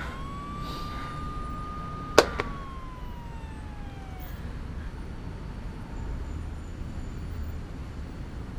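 A distant siren wails: it rises, holds its pitch for about two seconds, then falls away and fades. A low rumble like city traffic lies underneath. A single sharp click sounds about two seconds in.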